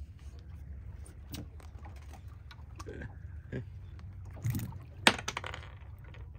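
Boat on the water: a steady low rumble with scattered small knocks and clicks, a few louder ones around four and a half seconds and one sharp click just after five seconds.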